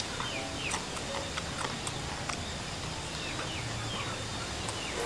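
An animal chirping in the background: short, falling chirps about two a second, irregularly spaced. Scattered soft clicks of chewing and of handling the roasted chicken come through as well.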